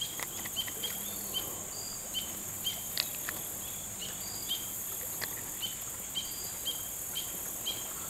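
Crickets chirping in many short, even notes at two pitches, over a steady high insect hiss, with a few faint clicks.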